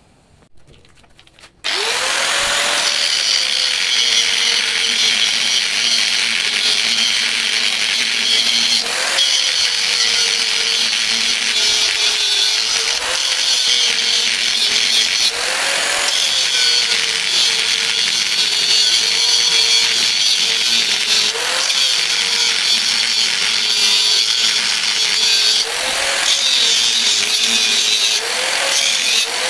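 Handheld angle grinder starting up a couple of seconds in and cutting through the steel shell of an inverter air-conditioner compressor. It keeps running loud throughout, its motor pitch rising and sagging several times as the cutting load varies.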